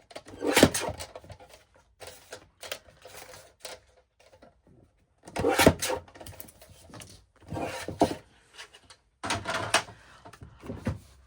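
Paper and cardstock being handled on a desk: several short bursts of rustling with light knocks and clicks, separated by brief pauses.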